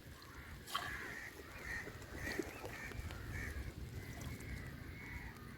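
Birds calling: a run of short repeated calls over a low rumble, with a sharp click about a second in.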